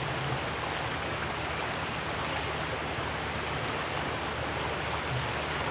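Shallow river water running past a stony bank: a steady, even rushing hiss.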